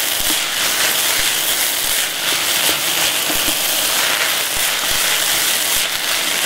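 Ground meat, diced vegetables and tomato paste frying in a pot: a steady sizzle with scattered crackles while a wooden spoon stirs through, the tomato paste being browned with the meat.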